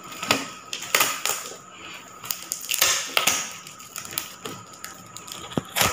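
Cardboard shipping box being opened by hand: irregular crackling, scraping and tapping as the packing tape and flaps are pulled, with a sharp loud crackle near the end.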